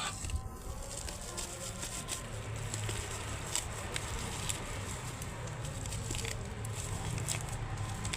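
Scattered light clicks and rustles of hands handling a flashlight and its packaging, over a steady low hum.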